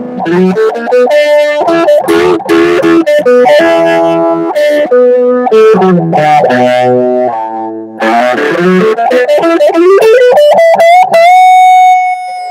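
Electric guitar played through a custom 5-watt three-channel amp: a lead line of picked notes, a quick rising run, then one long held note ringing out near the end.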